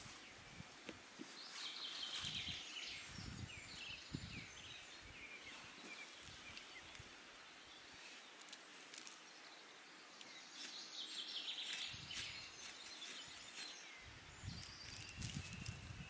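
Songbirds chirping and singing in bursts, over faint clicks and low knocks of small camping gear, a folding stove and a cookpot, being handled on a rock.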